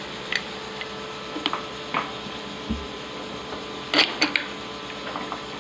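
Light clicks and knocks of a tapered strut spacer being handled and seated onto the top hat of a front strut and coil spring assembly, with a cluster of sharper knocks about four seconds in, over a steady shop hum.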